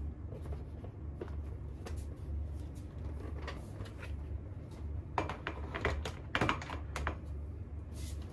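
Plastic clicks and knocks of a Mamakiddies high chair's food tray being handled and fitted onto the back of the chair's frame, with a quick run of sharper clicks about five to seven seconds in. A steady low hum runs underneath.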